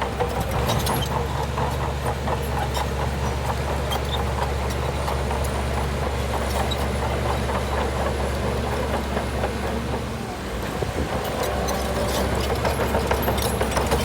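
Shantui bulldozer's diesel engine running steadily under a dense clatter, dropping back briefly about ten seconds in and then picking up again.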